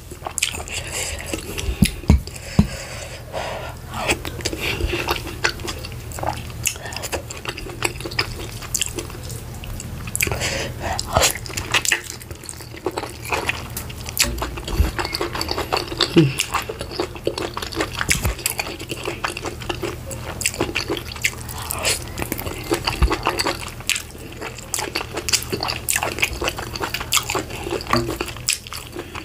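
Close-miked wet eating sounds: chewing and mouth smacking on garri fufu and vegetable soup, mixed with squelching as a bare hand picks through the oily soup and meat in a glass bowl. Irregular crackly clicks run throughout.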